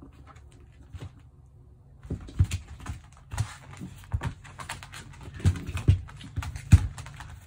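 A puppy shaking and worrying a leather hiking boot on a laminate floor: the boot knocks and scrapes against the floor while claws click and scrabble. It is fairly quiet for the first two seconds, then turns into a busy, irregular run of thumps and clicks.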